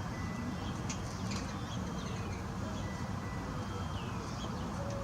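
Faint bird calls, a few short chirps and downward-gliding whistles, scattered over a steady low rumble of outdoor background noise.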